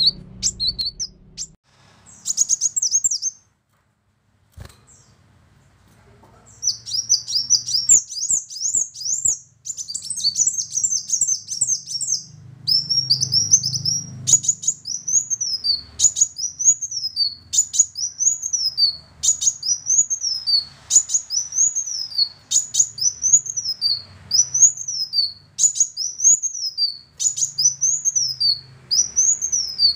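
Kolibri wulung sunbird singing: rapid high chirps and twittering, broken by a pause of about two seconds early on. From about halfway it repeats one song phrase of sweeping notes that rise and fall, roughly once a second.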